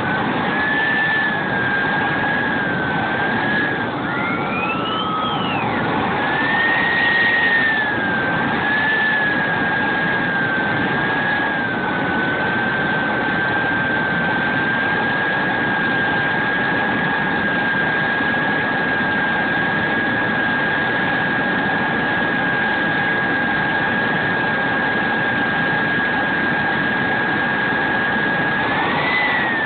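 The model jet's turbine is running with a steady whine over a rushing blast, heard from right beside the camera as the plane taxis on the ground. Its pitch wavers up and down through the first dozen seconds as the throttle moves, then holds steady at low power. A second, higher whine rises and falls again around five seconds in.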